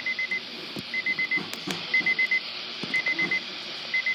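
Weather radio receiver's alert alarm beeping in quick groups of four short high beeps, about once a second, over steady radio hiss. It signals that a weather alert, here a severe thunderstorm warning, has been received.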